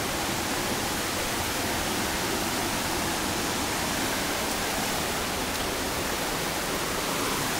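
Waterfall water rushing in a steady, even roar of noise.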